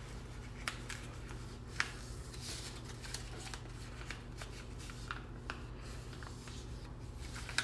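A sheet of white paper being folded and creased by hand on a desk: faint rustling with a few soft sharp ticks, over a steady low hum.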